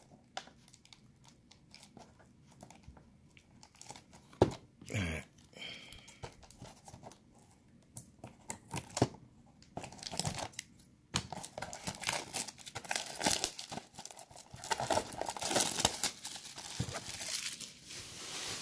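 Plastic shrink wrap on a trading-card blaster box crinkling and tearing as it is cut with scissors and pulled off by hand. Scattered crackles at first, with one louder tear about five seconds in, then steady crinkling from about ten seconds in.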